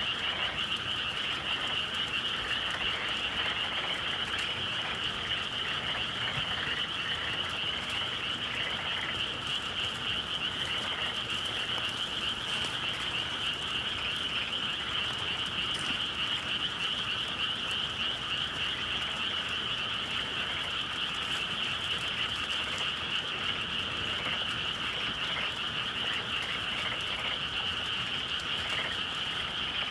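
A dense chorus of many frogs calling together without a break, an even, shimmering wall of calls on a spring evening.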